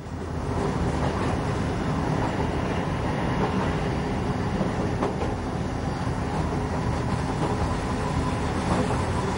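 Electric Bodensee-Toggenburg passenger train running along the track: a steady rumble of wheels on rail that swells in at the start and holds level, with a few faint ticks.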